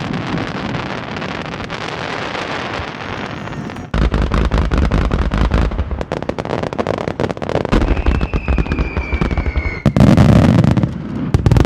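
Aerial fireworks finale: a dense barrage of crackling and popping shell bursts, with heavy booms from about four seconds in. A falling whistle sounds near the end, and the loudest bursts come last.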